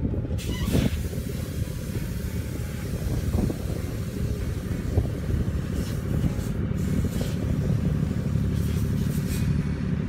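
Vehicle driving across open desert sand: a steady low rumble of engine and tyres, with wind buffeting the microphone.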